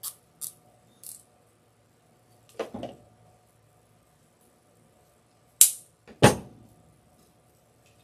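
A nylon zip tie being tugged tight around a ribbon bow, making a few short ratcheting zips in the first second. A rustle of ribbon handling follows, then two sharp snaps about two thirds of a second apart, about halfway through.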